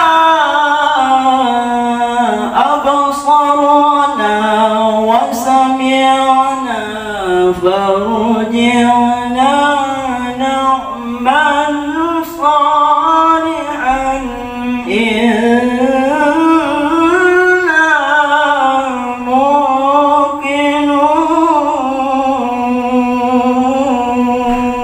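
A man chanting the Qur'an in the ornate melodic Egyptian style of tilawah, one long unbroken phrase held on a single breath, the pitch sliding up and down through many turns and trills.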